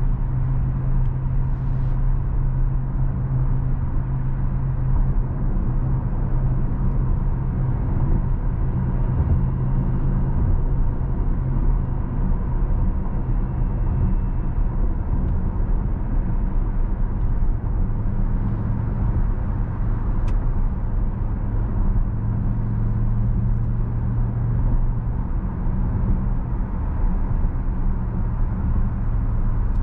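A car on the move: steady road and tyre noise with a low drone, unchanging in level, and a faint steady whine.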